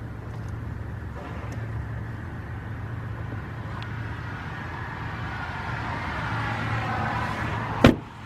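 Dodge Ram 1500 pickup's engine idling steadily while the steering wheel is turned to straighten the front wheels. A higher whine swells in the second half, then one sharp knock comes near the end.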